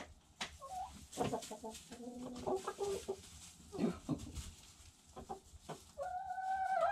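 Domestic hens clucking in short calls, with sharp taps scattered among them. Near the end one hen starts a long, drawn-out call.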